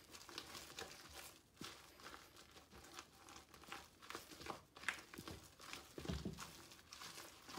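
A spatula folding whipped topping into a pudding and cream-cheese mixture in a bowl: faint, scattered scraping, squishing and clicking, with a soft low thump about six seconds in.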